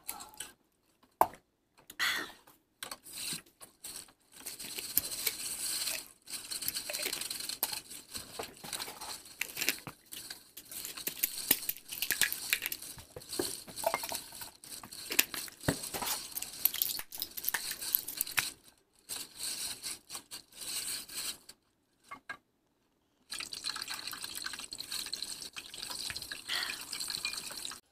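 Water running and splashing, with small clicks, in several stretches broken by brief silences.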